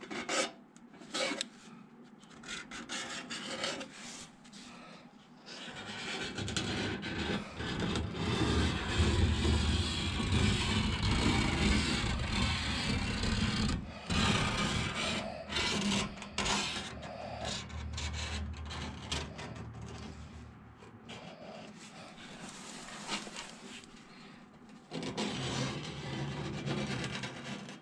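A steel scriber scratching along the edge of a sheet-steel patch panel, scribing cutting lines. It gives sparse, light scratches at first, then a long, steady scraping rasp from about six seconds in, easing near the end.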